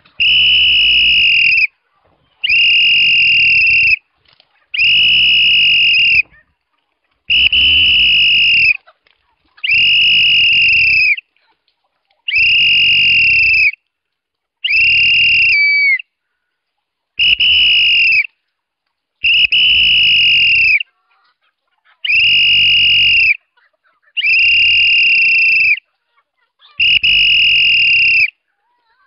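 A chicken-calling whistle blown in about a dozen long blasts, one every two seconds or so. Each blast is a steady high shrill tone that sags a little as it ends. It is the feeding call that brings the flock of chickens in.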